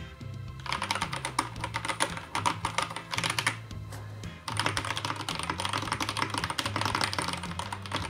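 Fast typing on a Drop Signature Series Classic Midnight mechanical keyboard with a solid metal body: a rapid clickety-clack of keystrokes in two runs, broken by a pause of about a second near the middle.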